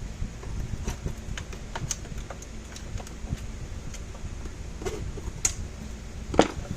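Plastic case of a fence charger being handled and slid apart: scattered light clicks and taps, with one louder knock near the end.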